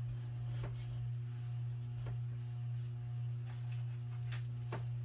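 Steady low hum with a few faint clicks scattered through it.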